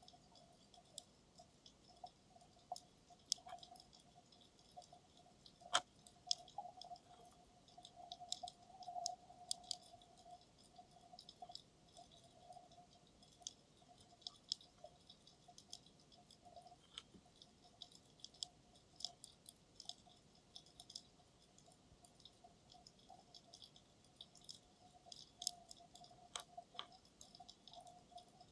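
Faint underwater crackle of scattered sharp clicks at irregular intervals, picked up through a 360 camera's waterproof dive housing, over a faint steady hum.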